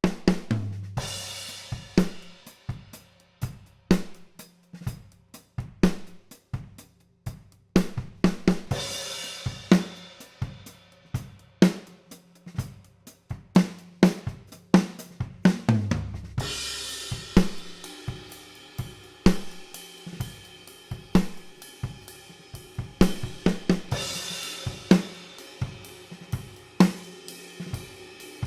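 Acoustic drum kit playing a steady groove with snare, kick and hi-hat, captured by large-diaphragm tube condenser overhead microphones with no EQ or compression. It starts out of silence, with a crash cymbal opening a new phrase about every eight seconds.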